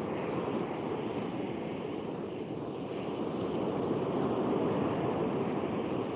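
Steady rushing of sea surf breaking on a sandy beach, mixed with wind on the microphone.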